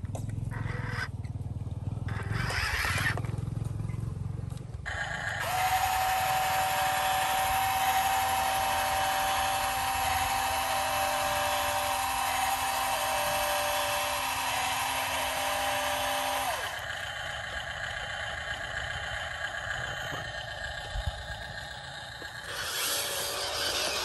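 Radio-controlled toy dump truck's small electric motors running. A steady whine starts about five seconds in and cuts off about sixteen seconds in while the tipper bed is raised to dump its load of sand. The motor noise picks up again near the end as the truck drives off.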